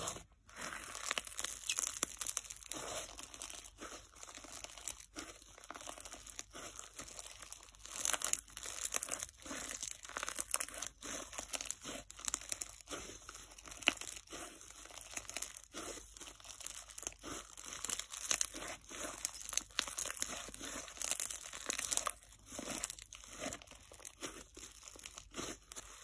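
Fizz slime packed with instant snow being pressed, stretched and folded by hand, giving a dense, rapid, irregular crunchy crackle and fizz.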